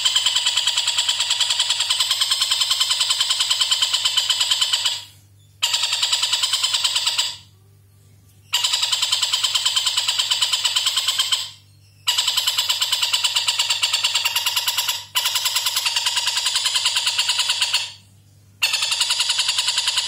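Oriental dollarbird (tengkek buto) giving long runs of fast, harsh chattering notes, about five or six a second, each run lasting several seconds and broken by a few short pauses. A faint steady hum lies underneath.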